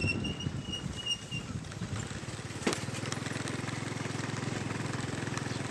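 Motorcycle engine running while riding a rough dirt track: uneven rumbling at first, then a sharp knock a little under three seconds in, after which the engine settles into a steady, even low pulsing. A thin high whistle-like tone sounds for about the first second and a half.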